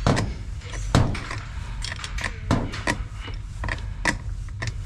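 A metal hand tool clicking and knocking irregularly on the battery terminal bolts as the cable connections are tightened.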